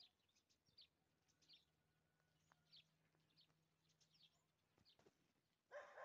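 Faint chirping of small birds, short high calls about twice a second, with a dog barking near the end.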